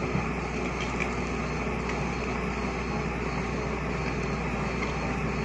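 Excavator engine running steadily with a constant low hum.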